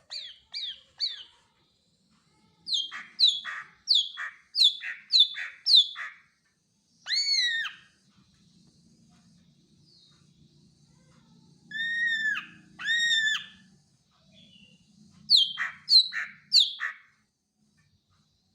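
Greater green leafbird (cucak ijo) singing: runs of sharp, quickly falling notes, three at the start, six in a row, then three more near the end, broken by a few longer arched whistled calls.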